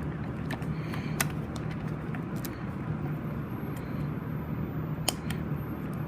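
Scattered small clicks and taps of 9-volt batteries and wire leads being handled and connected, over a steady low hum. A faint high-pitched whine comes in about halfway through.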